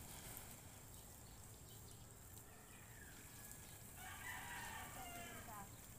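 A rooster crows once, faintly, about four seconds in: one call of under two seconds, held and then falling at the end.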